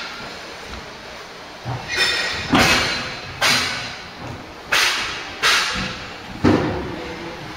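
Old wooden floorboards being thrown into a steel skip, landing in a series of sharp bangs about once a second, each dying away over half a second or so.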